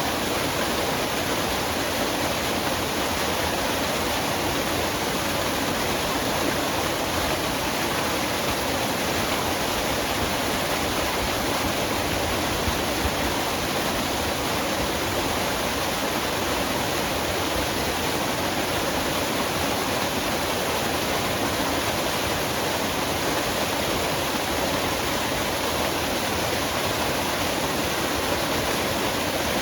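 Waterfall in a forest: water falling and splashing in a steady, unbroken rush.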